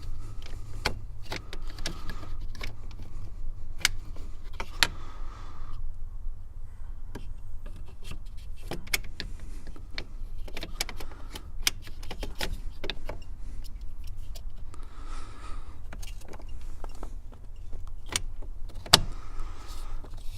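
Irregular clicks and taps of small plastic and metal parts being handled as a new ignition switch is fitted to a car's steering column, over a steady low rumble.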